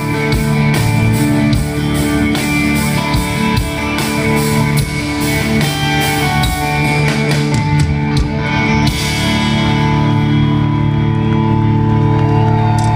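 Live country-rock band playing the song's instrumental ending: electric and acoustic guitars, bass and drums. About two-thirds of the way through, the drums stop and a held guitar chord rings on.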